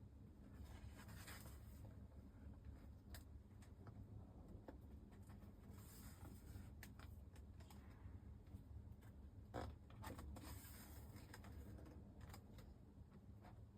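Near silence: a low steady hum with faint, scattered clicks and rustles.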